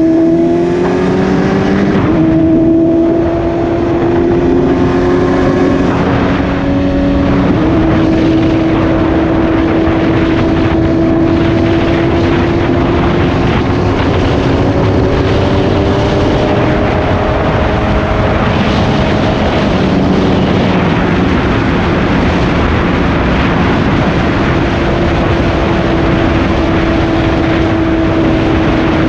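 BMW S1000RR inline-four with an Austin Racing aftermarket exhaust under way. It pulls up through the revs at the start, with upshifts about two seconds in and again around seven seconds, then runs at a steady cruise with the engine note drifting gently up and down, over a steady rush of wind.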